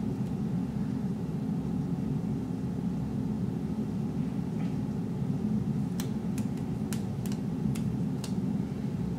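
A steady low background rumble. About six seconds in come a handful of light, sharp ticks and taps as washi tape is handled and pressed onto planner pages.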